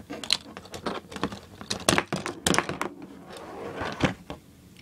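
Hard plastic B-daman toy parts being handled: an irregular run of sharp clicks and taps as the pieces are fitted, pulled and set down on a plastic lid.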